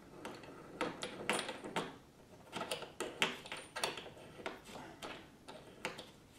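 Small metal clicks and rattles of a small C-clamp and nails being handled and tightened together, irregular, several a second in loose clusters.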